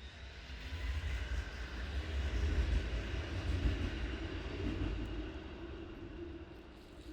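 A large vehicle passing close by on the street: a low rumble that swells, peaks around the middle and fades away.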